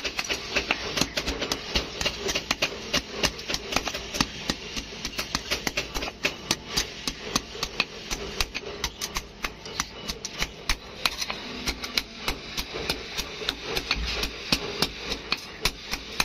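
Hand hammer beating a red-hot sickle blade on an anvil: a rapid, steady run of sharp metal-on-metal blows, several a second, as the hot steel is forged into shape.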